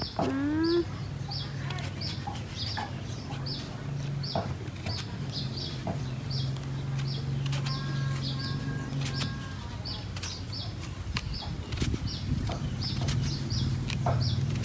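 A short high chirp repeating about three times a second over a low steady hum, with a brief rising call at the very start and scattered light clicks.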